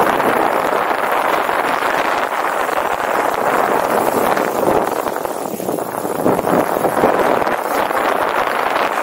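Wind rushing over the microphone with the rattle of a bicycle rolling fast downhill over a rough track.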